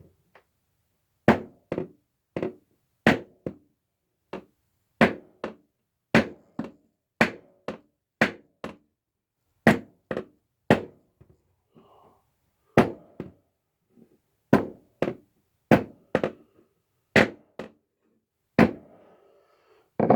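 Homemade bronze-faced fret hammer tapping frets into a guitar fretboard: a long run of sharp, ringing taps, often in pairs about half a second apart, with a short pause about midway.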